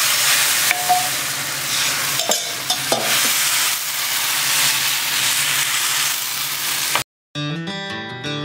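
Thin rice-flour dosa batter sizzling on a hot nonstick pan: a steady, dense hiss with a few light clicks. About seven seconds in it cuts off, and strummed acoustic guitar music begins.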